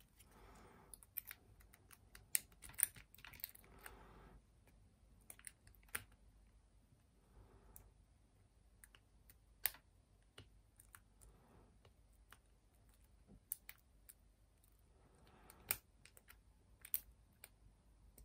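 Lock pick working a Master Lock padlock's pins against a tension wrench: irregular, sharp metallic clicks and small scrapes, with soft rustling of the hands on the lock.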